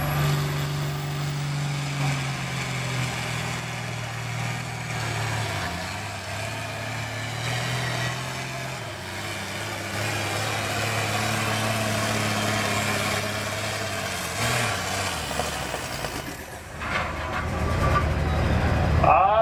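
Minneapolis-Moline G1350 super field pulling tractor's engine running hard under load while it drags the weight-transfer sled, its pitch sagging as the load builds and then holding steady. Near the end it dips briefly and then gives way to a loud low rumble.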